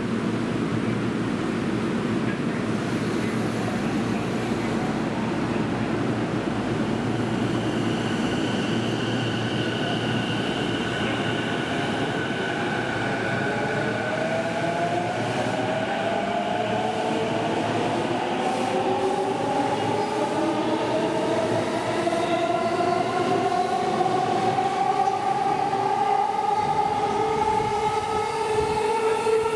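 Electric commuter train at the platform: wheels rumbling on the rails, then the traction motors' whine rising steadily in pitch through the second half as the train accelerates.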